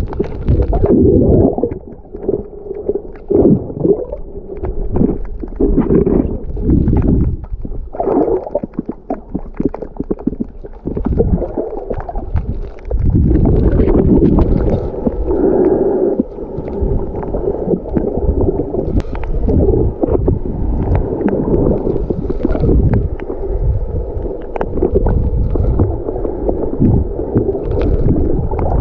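Muffled water gurgling and sloshing, heard through a camera held underwater while snorkeling, swelling and fading irregularly with scattered small clicks.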